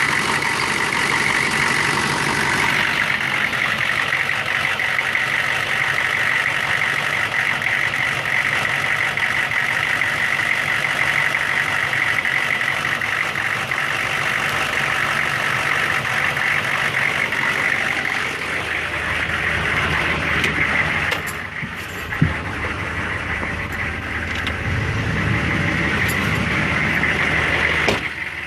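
1999 Chevrolet 6.5-litre V8 diesel engine running with a steady high whine over the engine note, its fuel injection pump failing. About 21 seconds in the level drops a little and the sound changes, with one sharp click just after.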